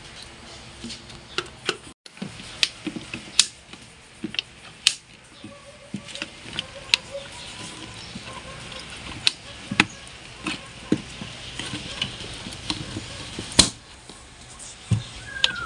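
Hard plastic air filter housing cover of an Isuzu D-Max being handled and seated on its airbox. Irregular clicks and knocks of plastic on plastic come as the cover is pressed into place and its clips are worked.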